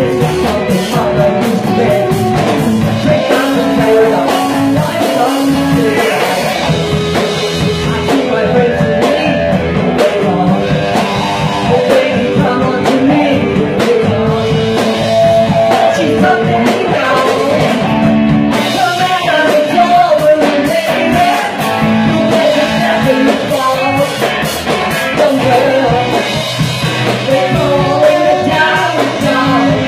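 Live rock band playing: electric guitars and a drum kit, with a man singing lead through a microphone.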